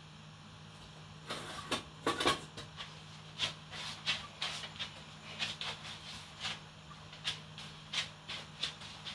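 Short, irregular clicks and rustles, roughly two a second, starting about a second in, over a low steady hum.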